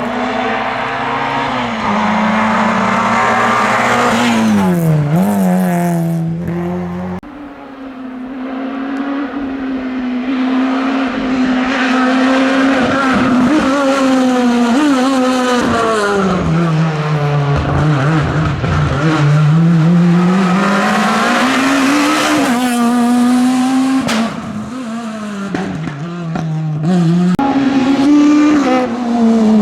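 Rally car engine at high revs, its pitch climbing and falling again and again as the car brakes and accelerates, with a brief dip in level about seven seconds in.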